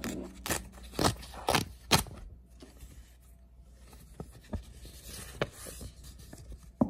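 A paper mailer being handled and opened: four sharp paper crackles in the first two seconds, then quieter rustling and scraping of the paper.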